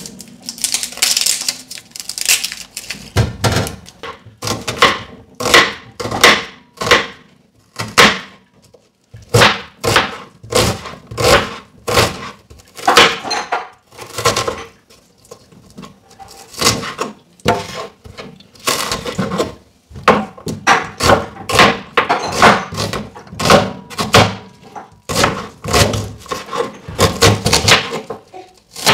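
Chef's knife chopping onion on a plastic cutting board: irregular knocks of the blade hitting the board, about one or two a second, in runs with short pauses. Near the start there is a brief papery rustle of onion skin being peeled.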